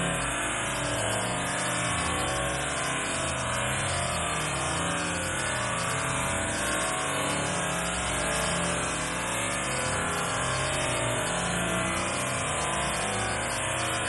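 Small waterfall: a stream pouring over a rock ledge and splashing into a pool, a steady, unbroken rush of water.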